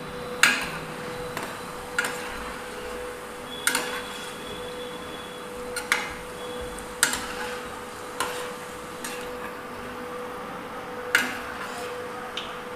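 A steel slotted ladle clinks and taps against a metal kadai about eight times, irregularly, every second or so, while stirring and scooping boondi out of hot frying oil. A faint sizzle of the oil runs underneath.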